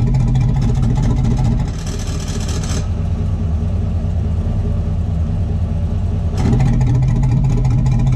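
GMC 2500 pickup idling with its exhaust flowing through an electric exhaust cutout. About two seconds in, the cutout motor whirs for about a second as the valve shuts and the exhaust goes quieter. A little after six seconds the valve opens again and the exhaust gets louder. Only one cutout is fitted, so one side bypasses its catalytic converter while the other runs through its cat, which gives an unbalanced exhaust tone.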